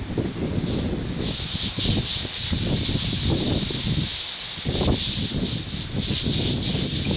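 Garden hose spraying water over a horse's back, a steady hiss that comes in strongly about a second in, rinsing off tea tree shampoo. An irregular low rumble sits underneath.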